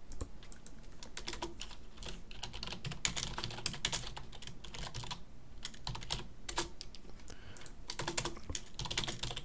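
Typing on a computer keyboard: irregular runs of quick key clicks, with a short lull about halfway through.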